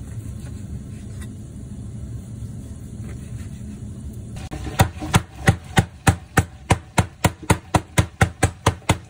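Metal meat mallet pounding a pork cutlet flat on a plastic cutting board: about fifteen sharp, evenly spaced blows, roughly three a second, starting about halfway through. Before the blows there is only a low steady hum.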